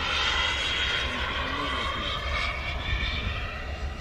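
K45G4 model turbine jet engine in a Freewing F22 Raptor RC jet in flight, a steady turbine whine and jet rush from the aircraft passing at a distance.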